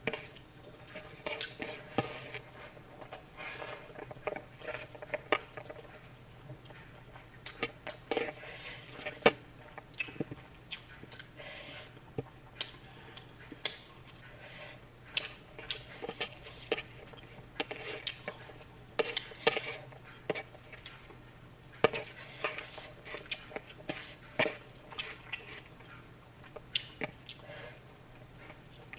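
Metal utensils and dishes clinking, knocking and scraping in irregular strokes, as in kitchen work with pots and cutlery.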